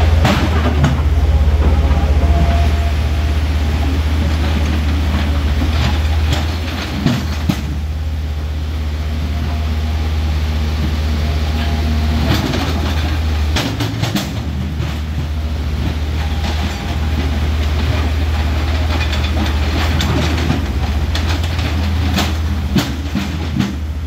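Hydraulic excavators' diesel engines running steadily, with sharp metal clanks and knocks as a bucket works against a river boulder, over rushing river water.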